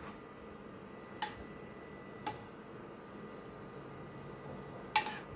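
Three light clinks of a metal spoon against metal while melted butter is spooned over a tray of baklava: one about a second in, one about two seconds in, and the loudest near the end. A faint steady hum runs underneath.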